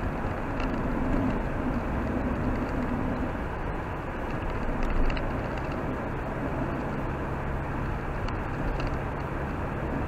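Car driving on a wet, slushy road, heard from inside the cabin: steady engine hum and tyre noise.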